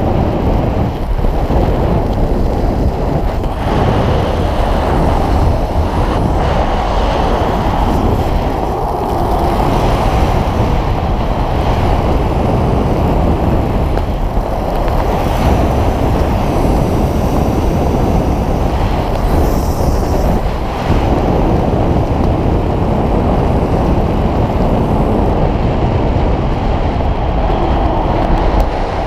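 Loud, steady wind noise buffeting a skydiver's camera microphone in freefall.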